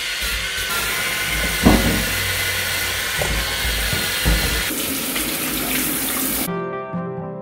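Cordless electric spin scrubber whirring as its brush head scrubs wet bathroom tiles, then water spraying from a handheld shower head for a couple of seconds. The hiss cuts off near the end, and background music with plucked strings comes in.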